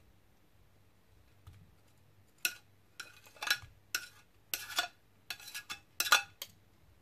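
Metal kitchen tongs clinking and scraping against a ceramic plate and a glass bowl. It is a quick string of about a dozen short clicks that starts about two and a half seconds in.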